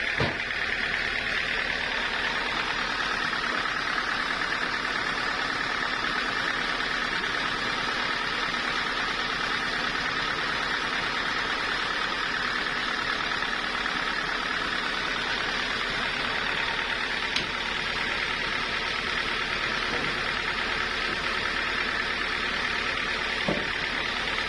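Sawmill machinery running steadily with an even, unbroken mechanical noise, broken only by a few faint clicks.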